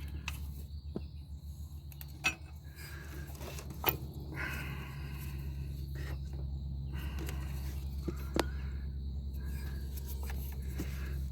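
Scattered light clicks and metallic knocks as fuel injectors are handled and pressed back into their ports in a GM 3.1 V6 intake, over a steady low background hum. A brief scraping rustle comes about four seconds in.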